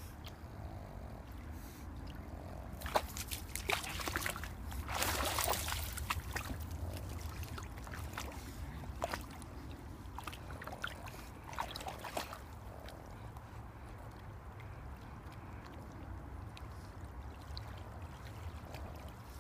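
Shallow lake water splashing and sloshing around a Boston Terrier as she wades and paddles. The splashes come in a run between about three and twelve seconds in, loudest around five seconds, then quieter, over a steady low rumble.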